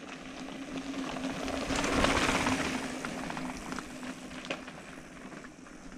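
Wind and tyre noise from a mountain bike ride, swelling to its loudest about two seconds in and easing off, with a steady low hum under it that fades out later on.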